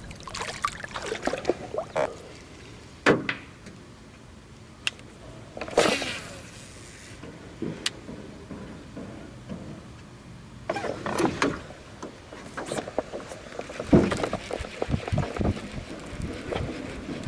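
Scattered knocks, clunks and rustles of fishing gear being handled in a jon boat, with several sharper knocks spread through and a louder one near the end.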